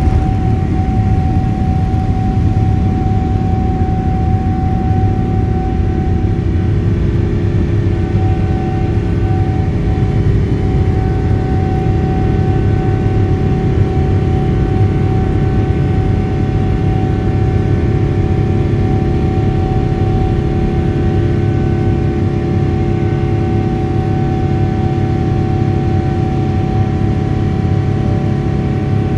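Boeing 777-300ER's GE90-115B turbofans at takeoff thrust, heard from the cabin over the wing during the initial climb: a steady deep rumble with a constant whining fan tone above it.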